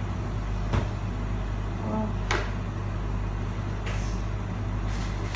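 Kitchenware clattering at the stove: four short sharp knocks spread a second or so apart, over a steady low mechanical hum.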